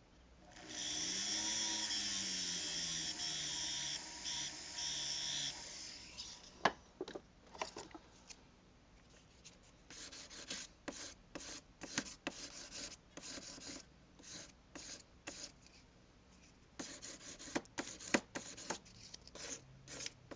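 A small motor runs for about five seconds, then irregular short scraping strokes follow, typical of filing and cleaning up the soldered seam of a freshly sized gold ring.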